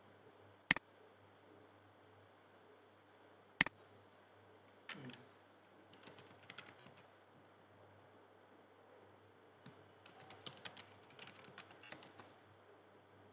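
Two sharp clicks, about three seconds apart, then two runs of quick keystrokes on a computer keyboard as a command and a password are typed.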